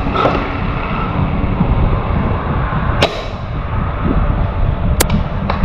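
Two sharp single airsoft gun shots about two seconds apart, over a steady low rumbling noise.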